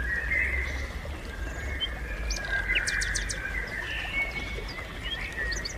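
Outdoor nature ambience: birds chirping and trilling over a steady low rumble, with a quick run of high chirps about three seconds in.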